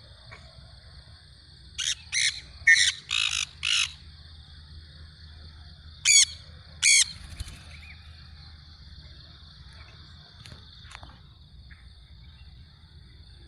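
A parrot screeching: a quick run of five shrill, harsh calls about two seconds in, then two more a few seconds later, over a steady high-pitched buzz.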